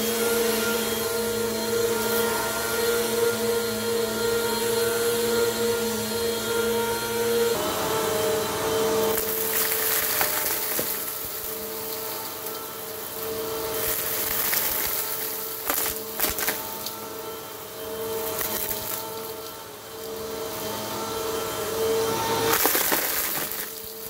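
Bissell PowerForce Compact upright vacuum cleaner running steadily on carpet with a constant motor hum. From about nine seconds in, bursts of crunching and rattling come and go as it sucks up a pile of shavings and small buttons.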